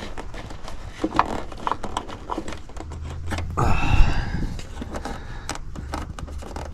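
Handling noise from work at a heat pump's electrical compartment: scattered light clicks and knocks, with a louder scraping rustle about three and a half seconds in.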